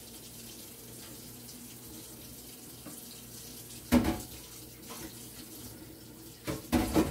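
Tap water running steadily into a sink while hands are washed. A sharp knock comes about four seconds in, and a couple more knocks near the end.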